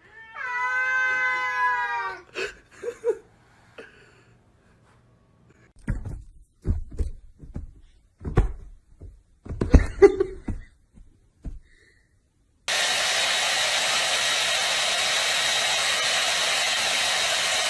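A long, drawn-out cat meow lasting about two seconds, then scattered thumps and knocks. After that comes a steady, loud rushing noise, like a blower, which starts abruptly and runs on past the end.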